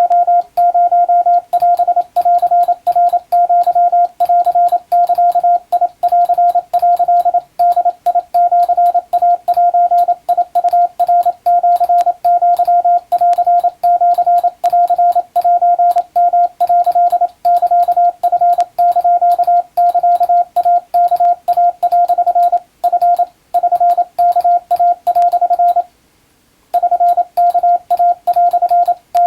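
Morse code (CW) tone of about 700 Hz keyed in rapid dots and dashes, sending Japanese wabun telegram text for receiving practice. There is a short pause about 26 seconds in.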